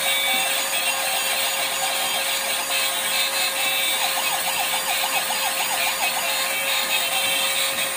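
Battery-powered toy police pickup truck's electronic siren and sound effects from a small, thin-sounding speaker, with a fast warbling yelp about halfway through.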